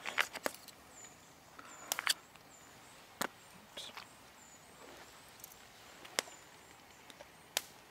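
Metal knife and fork cutting through bacon and egg cooked in a brown paper bag, with a handful of sharp clicks and scrapes of the cutlery spread through it.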